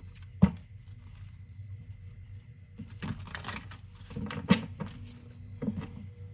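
Tarot cards being handled: one sharp snap about half a second in, then short runs of clicks and taps as cards are shuffled and drawn.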